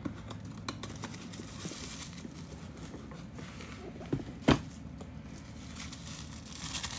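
Cardboard advent-calendar box being handled: small taps, clicks and light rustling as a compartment is opened and a small wrapped item is taken out, with one sharper knock about four and a half seconds in.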